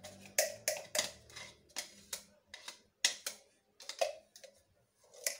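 Short, irregular taps and knocks, a few a second, as crushed garlic is shaken and knocked out of its container onto meat in a glass bowl.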